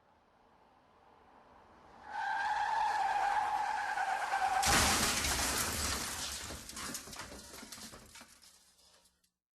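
Car crash sound effect: a faint approaching rush, then about two seconds in a steady tyre squeal lasting about two and a half seconds, then a sudden loud crash with shattering and clattering debris that fades away over about four seconds.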